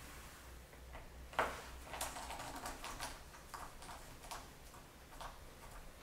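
A small precision screwdriver clicking and ticking against a laptop's metal bottom panel as its screws are driven back in. One sharp click about a second and a half in, then a run of faint, irregular ticks.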